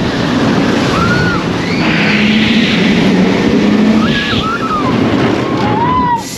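Rider's-eye sound of an Intamin launched roller coaster in motion: loud wind rushing over the microphone and the train running along the track, with several short rising-and-falling screams from riders.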